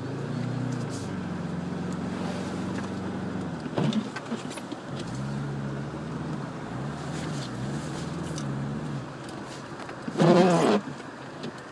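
1998 Subaru Legacy Outback's engine pulling away through snow, its pitch swelling and dropping a few times as the throttle is worked. A brief loud sound cuts in near the end.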